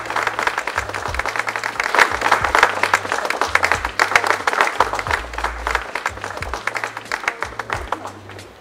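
Crowd applauding, the clapping thinning out and fading over the last couple of seconds, over music with a repeating bass line.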